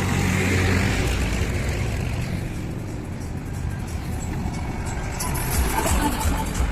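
Heavy diesel engine running steadily, louder in the first second, with a few knocks near the end.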